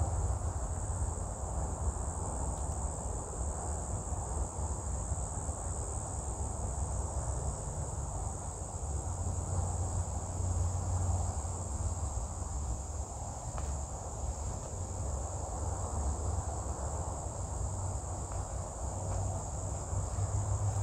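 Steady high-pitched insect chorus, a continuous chirring that never breaks, over a low rumble.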